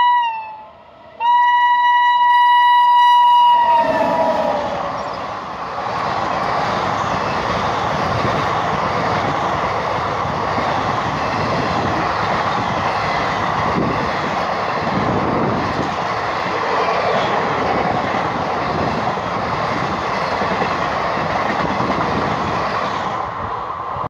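WAP7 electric locomotive's horn blaring as the train approaches at speed: one blast tails off just after the start and a second long blast follows, sliding down in pitch as the locomotive passes. Then a passenger train's coaches rush past for about twenty seconds, a steady roar of wheels on rails with clattering.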